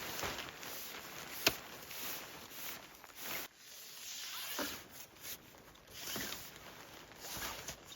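Footsteps crunching through snow, several uneven steps, with one sharp click about one and a half seconds in.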